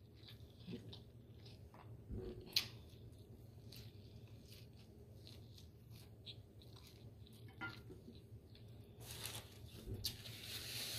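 Quiet, scattered small clicks and taps of eating and handling food at a table, one sharper tick a few seconds in, then a stretch of rustling near the end.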